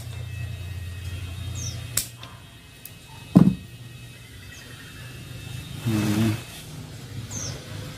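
A sharp snip of a grafting tool's blades cutting into the bonsai stock about two seconds in, over a low engine hum that fades out around then. About three and a half seconds in comes the loudest sound, short and falling steeply in pitch, and near six seconds a brief low hum.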